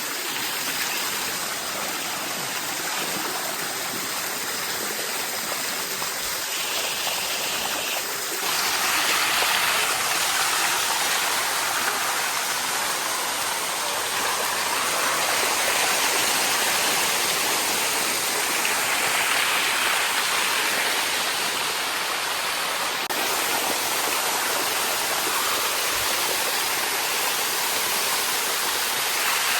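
Waterfall water rushing steadily. About eight seconds in it abruptly gets a little louder and brighter.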